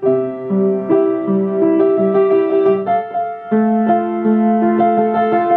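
Grand piano played solo: a melody over chords, with a new note or chord struck roughly every half second and left to ring.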